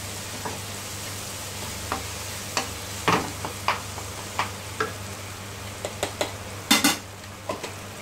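Wooden spatula stirring frying onion-tomato masala in a non-stick kadai, knocking and scraping against the pan about a dozen times over a steady sizzle. The loudest knock comes a little after three seconds, and a close pair comes near seven seconds.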